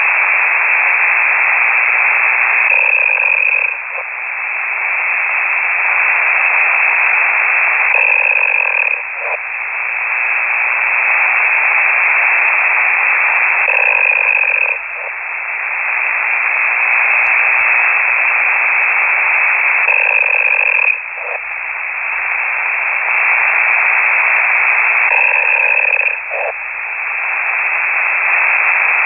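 A radio amateur's snoring heard over a shortwave ham radio signal through a KiwiSDR receiver: a loud, hissy rasp that swells and breaks off sharply about every six seconds.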